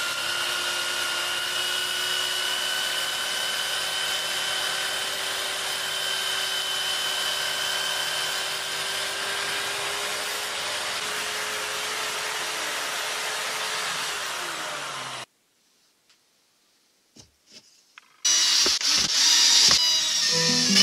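Electric drill powering a homemade grinding machine, its motor running at a steady whine over a grinding hiss; it winds down and stops about 15 seconds in. After a few seconds of near silence with a couple of clicks, a loud new sound starts near the end.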